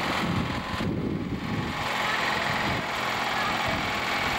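Small garden tractor engine running steadily while it tows a rope-pulled wheeled cart. A rough rumbling noise fills the first two seconds, then the engine's even drone comes through clearly.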